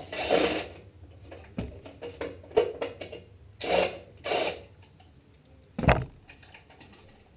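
Cordless impact driver running in three short bursts, backing out the screws that hold a small engine's throttle linkage, with small clicks of parts being handled and one sharp knock near the end as the throttle parts come off.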